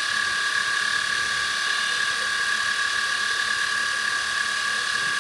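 X1 CNC micromill engraving 6061 aluminum with a 90-degree V-bit at 2500 rpm: a steady high whine from the running machine over the constant rasping of the cutter in the metal.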